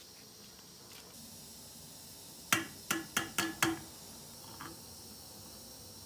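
Five sharp metallic knocks in quick succession, each ringing briefly, like metal striking metal cookware, then one fainter knock about a second later; a faint steady hiss underneath.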